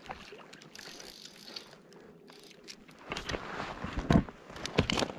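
Fly reel's click-and-pawl drag ratcheting as line is reeled in and given while a cutthroat trout is played on the reel. It is faint at first and turns louder and denser about three seconds in, with sharp irregular clicks and knocks.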